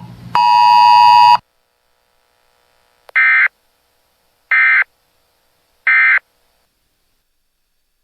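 A steady electronic tone, briefly broken at the start, stops about a second and a half in. It is followed by three short, identical data bursts about 1.4 seconds apart. These are the Emergency Alert System SAME end-of-message tones closing a NOAA Weather Radio alert broadcast.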